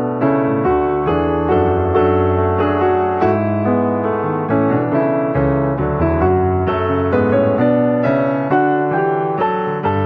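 Piano music, with notes struck one after another at an even pace.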